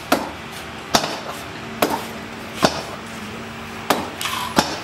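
Hammer striking metal: six sharp knocks, irregularly spaced about a second apart, at a steel frame being worked on.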